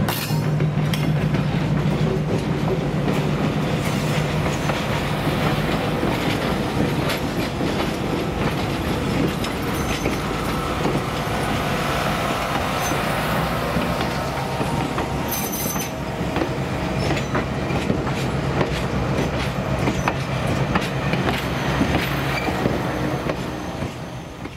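Passenger coaches of a diesel-hauled train rolling past close by, their wheels clicking and clattering over the rail joints. A low diesel engine hum fades in the first couple of seconds, and the train noise drops away near the end.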